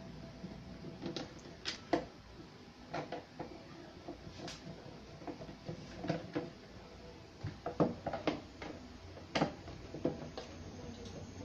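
Irregular clicks and light knocks of a screwdriver working screws out of a Sony CRT television's plastic back cover, with some handling of the cabinet.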